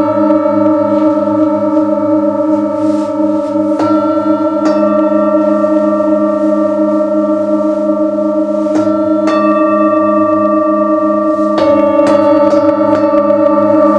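Metal singing bowls struck with a mallet every few seconds, often two in quick succession, each strike adding a bright ring over several overlapping tones that sustain throughout. The lowest note wavers with a slow, regular beat.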